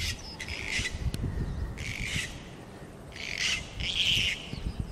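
Harsh bird squawks, about five short raspy calls each under half a second, over wind buffeting the microphone.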